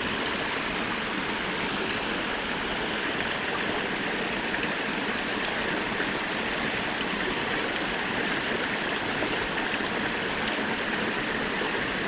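Steady rushing of a small creek's flowing water, even and unchanging throughout.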